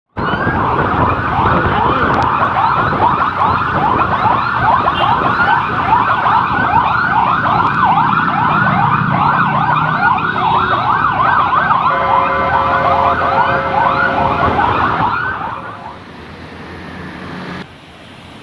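Electronic emergency sirens yelping in fast rising-and-falling sweeps, more than one siren overlapping. About twelve seconds in, the sweeps change to a steady stepped tone. About fifteen seconds in, the sirens stop, leaving a much quieter rush of wind and road noise.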